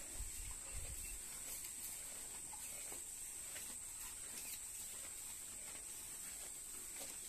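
A steady high insect drone, with faint crunching and tearing of cows chewing fresh grass and corn leaves. A few low thumps come in the first second.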